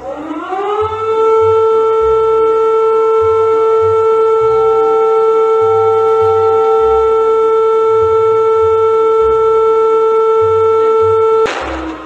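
Emergency alarm siren tone that winds up in pitch over about a second, then holds one steady note until it cuts off suddenly near the end. A beat from background music runs faintly underneath.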